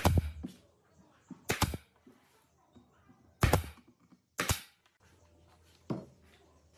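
Five sharp knocks a second or two apart, irregularly spaced, with quiet between them.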